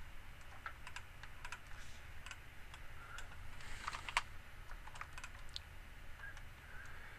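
Computer keyboard typing: scattered, irregular keystroke clicks, with a faint low hum underneath.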